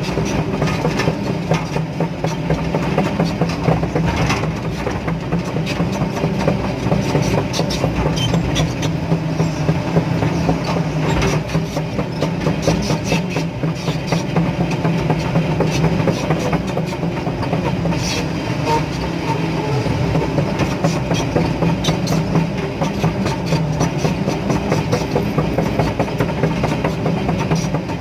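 Hydraulic excavator's diesel engine running steadily under work, with frequent short knocks and clatter over its hum.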